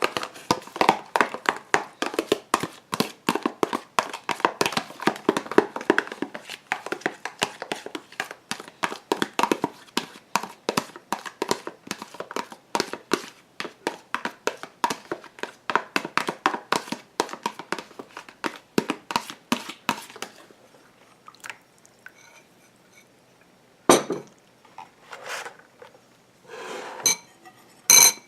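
Aloe vera gel and glycerin being stirred briskly in a bowl, the utensil clinking against the sides several times a second. The stirring stops about two-thirds of the way through, and a few separate knocks follow.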